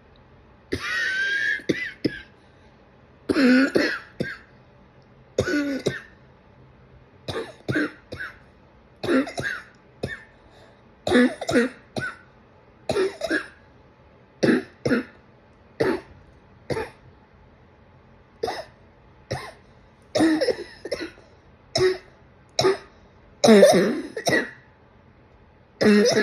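A person coughing again and again: about two dozen short coughs, some single and some in quick pairs, each a second or two apart.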